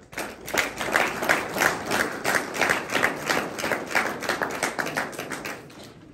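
Applause at the end of a string quartet piece, with one pair of hands close by clapping about three times a second. It starts sharply and dies away near the end.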